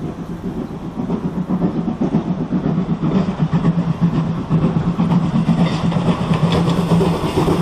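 C11 steam tank locomotive working steam as it hauls two passenger coaches at low speed, its sound growing louder as it approaches.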